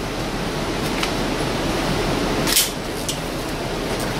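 Steady hiss of background noise with a few brief sharp clicks, the clearest about two and a half seconds in.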